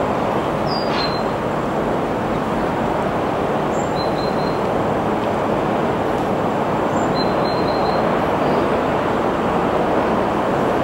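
A steady, even rushing noise with no rise or fall, and a few short, high bird chirps over it.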